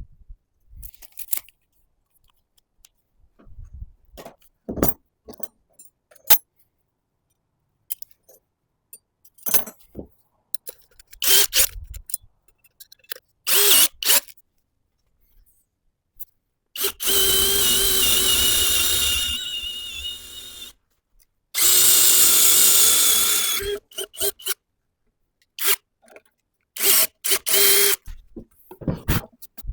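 Power drill running in two bursts of a few seconds each, with a steady motor whine, amid scattered short clicks and knocks of tool handling.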